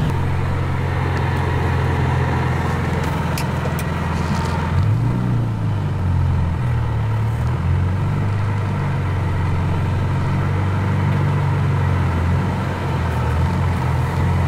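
BMW M3's straight-six engine heard from inside the cabin, running at low revs as the car is driven slowly. Its note shifts up and down with the throttle from about five seconds in.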